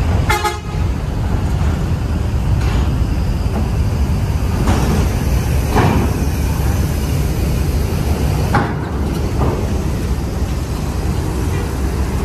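Large coach's diesel engine running with a heavy low rumble as it drives onto a ferry's steel loading ramp, with a short horn toot about half a second in and a few brief knocks later on.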